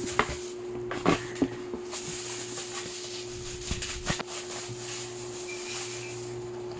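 Packaging and the boxed air purifier being handled during unboxing: a few scattered knocks and clicks over rustling, with a steady hum underneath.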